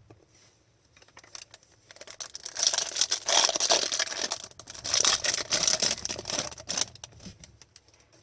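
The foil wrapper of a trading-card pack being torn open and crinkled. There are two loud crackling stretches, one a little past two seconds in and another about five seconds in.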